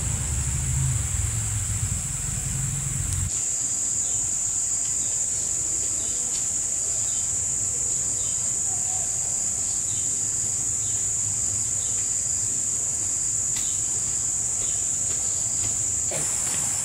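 Insects giving a steady high-pitched drone. A low engine-like rumble is under it for about the first three seconds and cuts off abruptly.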